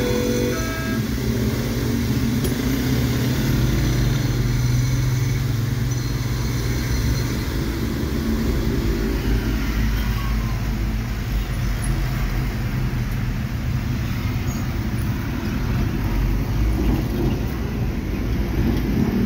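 The level-crossing warning signal's electronic tones stop about a second in. A car engine runs steadily among the street traffic.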